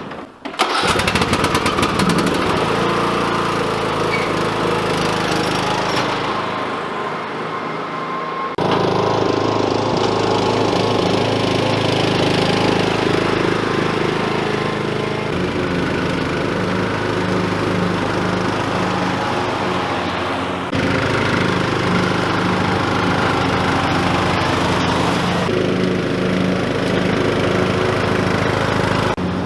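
Riding lawn mower engine running steadily, starting up about a second in; its pitch and level jump abruptly a few times.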